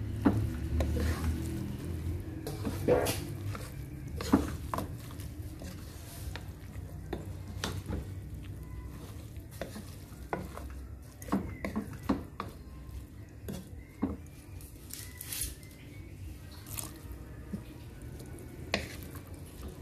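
Wooden spoon stirring chopped sweet potato leaves in a metal cooking pot, with irregular knocks and scrapes of the spoon against the pot.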